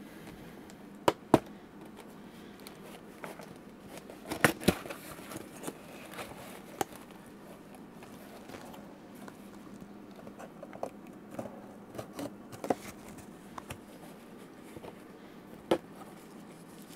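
A cardboard shipping box being opened by hand: packing tape slit with a pen tip and the flaps pulled back, with cardboard crinkling and a few sharp taps and knocks, several close together about four and a half seconds in.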